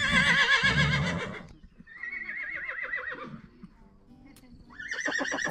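Horses whinnying: a long, loud, quavering whinny, then a weaker one about two seconds in, and another starting near the end.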